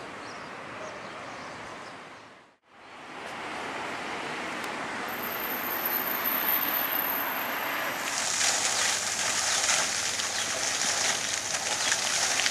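Steady outdoor background noise that dips briefly to near silence between shots; from about eight seconds in, a garden fountain's spray splashing into its basin, a steady hiss.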